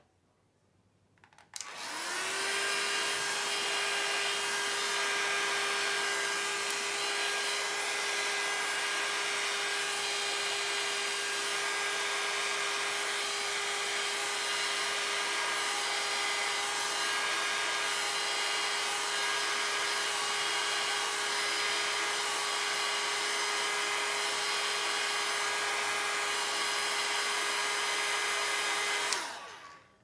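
Handheld hair dryer switched on about a second and a half in, its hum rising briefly as the motor spins up, then running steadily as it blows alcohol ink across the paper, and switched off shortly before the end.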